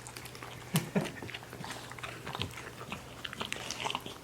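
A pet chewing crunchy cereal puffs: a run of short, irregular crunches and clicks, with one sharper crack about a second in.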